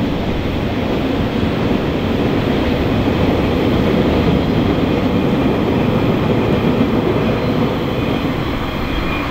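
Steady rumble of a freight train's wagons rolling over a concrete bridge as the tail of the train passes and moves away.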